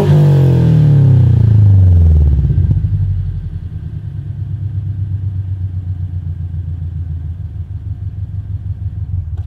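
Scion FR-S 2.0-litre boxer four through a RevWorks unequal-length header and Invidia N1 exhaust, revs falling from a blip back to idle over about three seconds, then idling with a steady pulsing beat; the sound cuts off suddenly near the end. The exhaust has a slight leak at the flange where the header meets the stock over-pipe.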